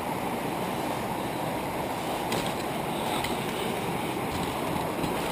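Rushing mountain river running over rocks: a steady, even rush of water.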